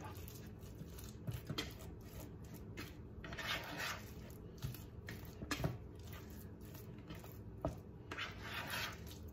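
A fork stirring and mashing a thick mixture of chopped ham, pickle and cream cheese in a bowl: soft scraping strokes, with a few sharp clicks of the fork against the bowl.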